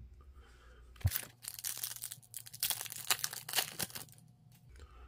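Foil wrapper of an Upper Deck hockey card pack being torn open and crinkled: a quick run of crackling, rustling tears starting about a second in and lasting roughly three seconds.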